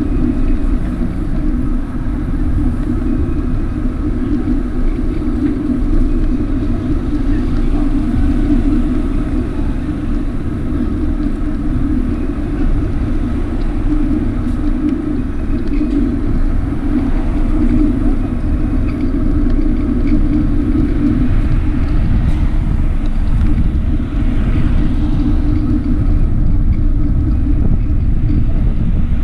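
Steady road noise from a vehicle moving along a street: a continuous low rumble with a constant hum over it, unbroken throughout.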